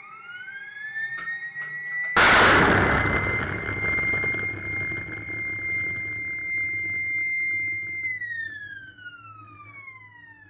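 A RIM-116 Rolling Airframe Missile fires from its Mk 49 deck launcher. A whine rises in pitch and holds steady. About two seconds in comes the sudden loud rocket blast of the launch, which rushes and fades over several seconds. Near the end the whine falls away in pitch.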